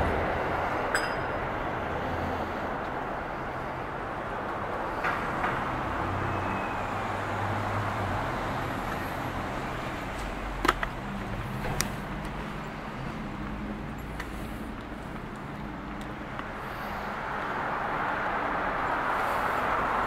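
Street traffic: a steady wash of motor-vehicle noise with low engine hum. A few sharp clicks come about halfway through, and the traffic grows louder near the end.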